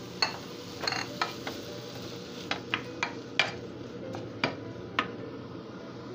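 A stirring utensil knocking and scraping against a square copper-coloured nonstick frying pan as seafood and beaten egg are mixed, with about ten sharp clicks at irregular intervals.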